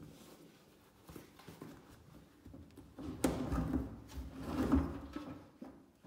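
Household things being handled and shifted about in a cabinet, with a few light knocks and then, about three seconds in, a louder stretch of rubbing, scraping and knocking like a drawer or cabinet shelf being slid.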